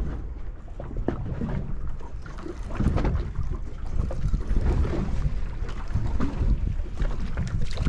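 Wind buffeting the microphone on a small boat at sea: a strong, uneven low rumble with irregular knocks and splashes of water against the hull.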